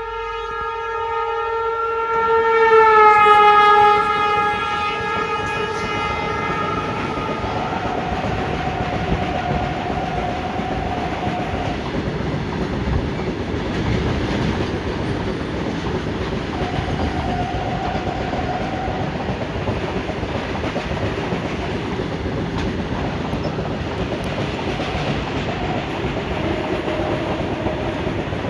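Goods train's locomotive horn sounding a long note as it draws alongside, its pitch dropping as it passes about three seconds in. Then the steady rumble and clickety-clack of the goods wagons and wheels on the rails, with a fainter, higher tone coming and going a few times.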